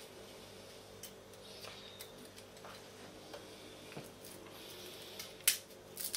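Small kitchen knife peeling garlic cloves by hand: faint scattered clicks and scrapes of the blade on the cloves, with one sharper click near the end.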